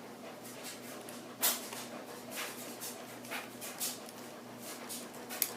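Scattered handling noises and light scrapes as the rear screw of an airsoft G36 is unscrewed, with a sharp click about a second and a half in and another near the end, over a faint steady hum.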